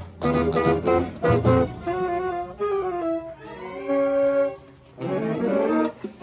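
Marching band winds, tenor saxophone close up among brass, playing: short punched notes, then longer held notes with a falling slide and a sustained chord, a brief break, and a loud hit at the close.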